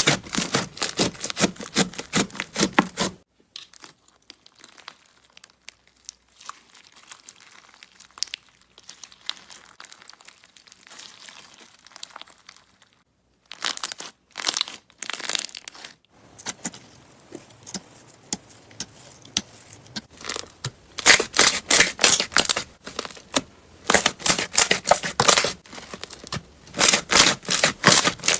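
Slime being pressed and squeezed by hand, air bubbles in it popping in rapid crackling runs. Loud stretches of dense popping alternate with quieter, softer squishing, with a brief dropout about halfway.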